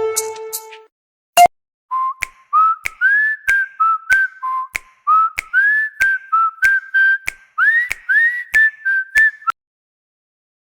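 Huawei Honor 9a ringtone: a whistled melody of short gliding notes over a regular click beat, stopping abruptly near the end. It starts just after the last notes of the previous plucked ringtone die away.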